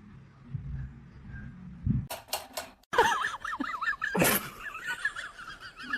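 A few sharp knocks, then an animal's high-pitched call that wavers quickly up and down in pitch and goes on, with a loud burst of noise about four seconds in.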